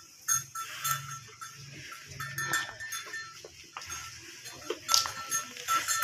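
Cattle shuffling and being led on dirt ground, with hoof and rustling noises and a short high ringing note that comes and goes several times.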